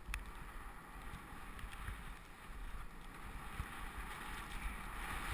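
Skis hissing as they run through deep powder snow, growing louder toward the end, over a low rumble of wind on the microphone.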